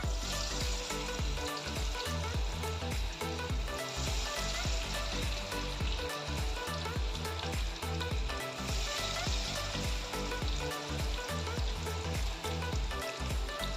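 Marinated chicken kebab pieces sizzling as they fry, with background music underneath. The sizzle starts suddenly, eases off for a few seconds in the middle and grows loud again about nine seconds in.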